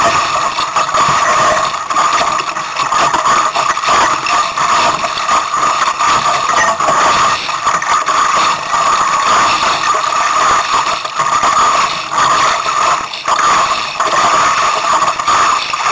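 Strong, gusty storm wind rushing over the camera microphone on a small sailboat, its loudness surging and dipping irregularly, with a steady high tone running through the rush.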